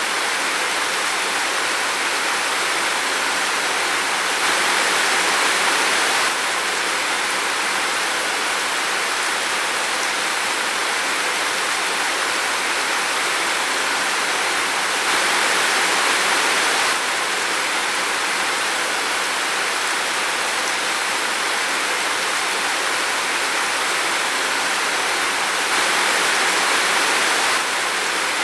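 Steady rain falling, an even hiss of water that swells slightly louder for about two seconds three times.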